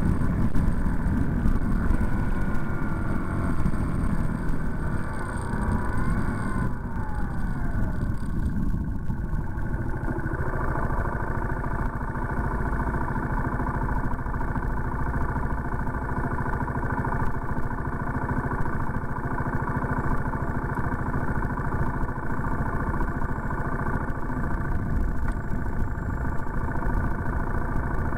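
Vehicle engine and road noise picked up by a dashcam: the engine note falls as the vehicle slows to a stop in the first several seconds, then the engine idles steadily while stationary.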